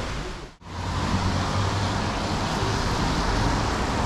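Road traffic noise on a city street: a steady low rumble of passing vehicles with an even hiss over it. It drops out sharply for an instant about half a second in, then resumes.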